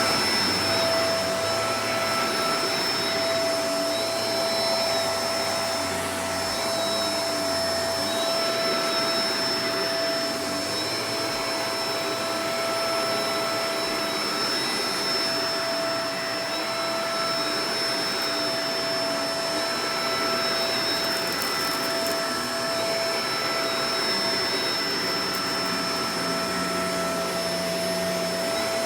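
Shark Professional Powered Lift-Away DLX (NV586) upright vacuum cleaner running steadily: a constant rush of air with a steady whine over it.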